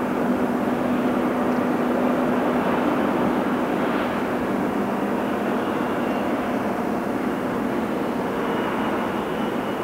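Heavy diesel machinery running steadily, with a low engine hum that weakens about halfway through.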